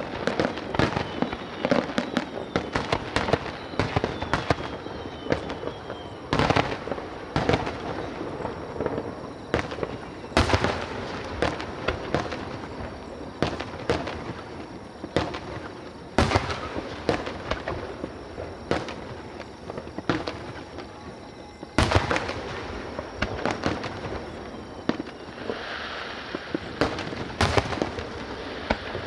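Aerial fireworks display: shells bursting with loud bangs every few seconds, amid dense crackling and popping.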